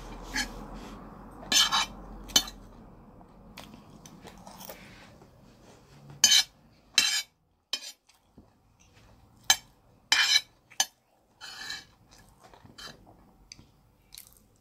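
Metal spoon scraping and clinking against a plate while scooping food, in short sharp strokes at uneven intervals, a few of them much louder than the rest.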